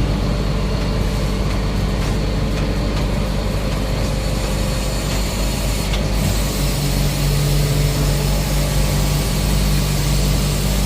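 A truck engine running steadily with an even low drone.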